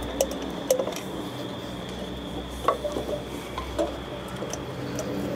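Scattered small clicks and taps of hands handling hoses and wiring in a car's engine bay, the sharpest about two and a half seconds in, over a faint steady high tone.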